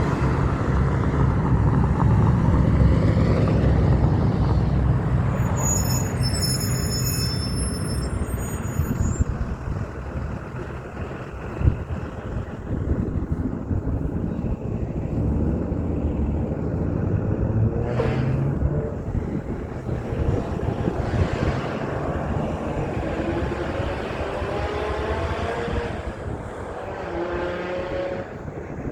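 Heavy trucks driving past, their diesel engines running loud and low. A high-pitched squeal comes in briefly about six seconds in, and later engines rise in pitch in steps as a truck pulls away through its gears.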